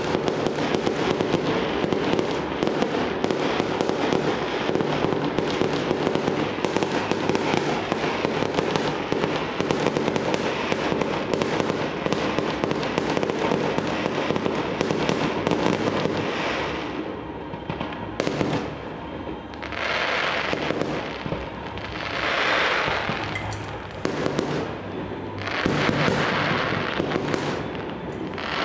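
Fireworks going off in a dense barrage of rapid bangs and crackles. About two-thirds of the way through it thins out into separate swells of crackling, each one to two seconds long.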